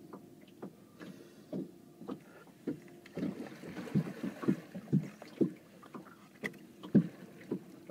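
Small waves lapping and slapping against a boat's hull: irregular short knocks a couple of times a second, over a faint steady hum.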